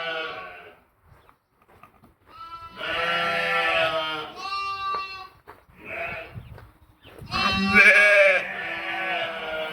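Sheep and lambs bleating: after a brief lull, a string of bleats, some overlapping and some higher-pitched, with the loudest call a little past the middle.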